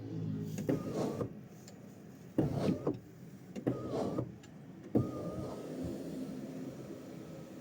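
Ford Territory's electric sunroof motor running, with several short louder spells in the first few seconds, a sharp click about five seconds in, then a steady hum. No rattles or other unusual noises: fairly quiet, as the owner judges it.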